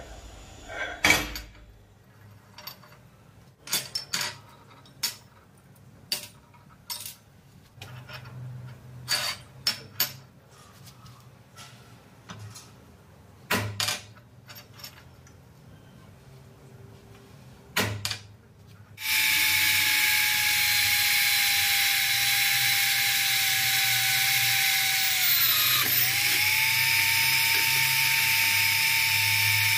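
Steel tube and tools handled on a steel workbench: scattered clinks and knocks. About 19 s in, a small bench drill press starts and runs steadily with a whine, its pitch sagging briefly near the end as the bit loads up in the steel, then recovering.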